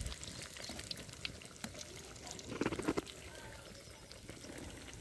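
Hot oil sizzling and crackling faintly in an iron kadhai with battered potato slices frying in it, with a brief louder handling sound a little past halfway.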